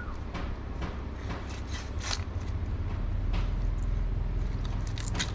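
Knife cutting off the head of a dolphin fish (mahi-mahi), a run of irregular crunching clicks and knocks as the blade works through it, over a steady low rumble.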